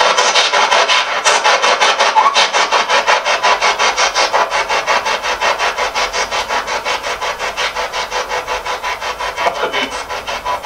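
Spirit box radio sweeping through stations: a fast, even chatter of static pulses, several a second, growing slightly quieter near the end.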